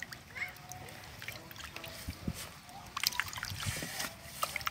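Hands sloshing and rubbing vegetables in a steel basin of water, with small splashes and drips that grow busier and louder about three seconds in.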